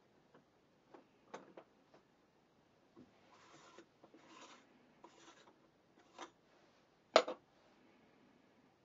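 Handling noises from a camera lens on a metal collimating jig. There are faint clicks, three short rubbing scrapes in the middle, and one sharp knock about seven seconds in.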